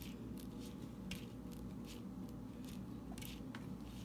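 Light, irregular clicks and taps of plastic Lego parts as a Lego toy vehicle is handled on a tabletop and its winch wheel is turned to reel in a string. A faint steady low hum lies under them.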